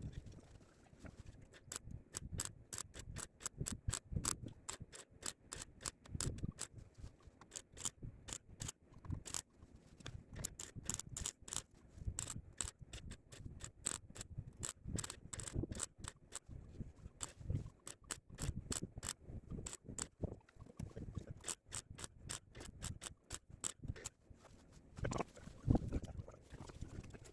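MIG welder spot-welding a steel patch panel onto a van sill: rapid sharp crackles and ticks in short clustered bursts.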